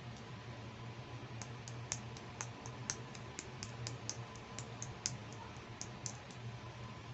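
Light, sharp plastic clicks and taps, about twenty at an uneven pace of three or four a second, as small plastic butterfly hair combs are handled. They start about a second and a half in and stop shortly before the end, over a faint steady hum.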